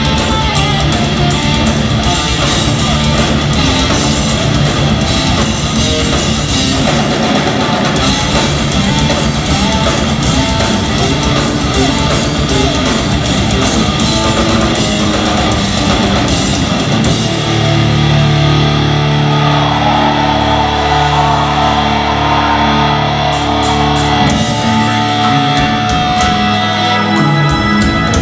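Progressive metal band playing live: distorted electric guitars and bass over fast, dense drumming. About 17 seconds in the drumming thins out and the band holds long, low chords, with drum hits returning near the end.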